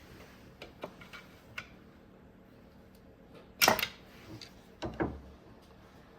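Scattered light clicks and knocks of hands and a screwdriver working wiring and connectors in a truck's engine bay, with a sharper clatter about three and a half seconds in and two more knocks around five seconds.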